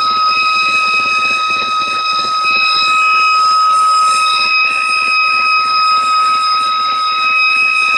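Steady high whistling whine at one unchanging pitch, with overtones, over a BMW X1 engine running: the strange noise that seems to come from between the engine and the gearbox.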